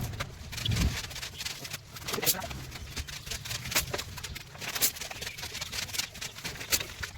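Hand tools working wood: sharp, irregular knocks and taps, a couple every second, typical of a mallet driving a carving chisel.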